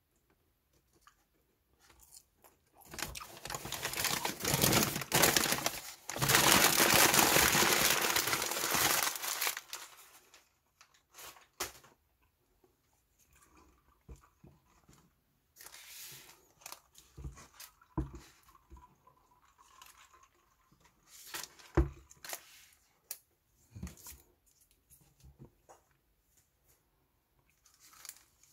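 Close-up crunchy chewing of french fries for several seconds, followed by quieter handling of fast-food packaging: a plastic straw and cup lid with a few sharp clicks, and a paper burger wrapper crinkling near the end.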